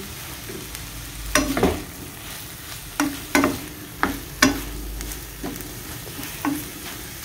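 Okra and celery sautéing in a frying pan with a steady sizzle, while a utensil stirring them knocks and scrapes against the pan about eight times.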